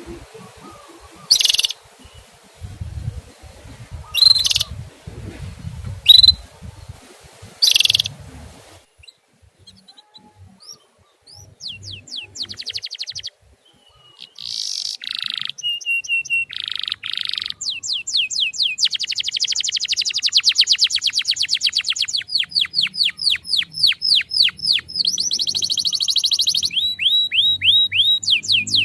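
Songbird calls: loud, sharp calls about every two seconds, then after a short gap a long run of fast, high trills made of rapid falling notes.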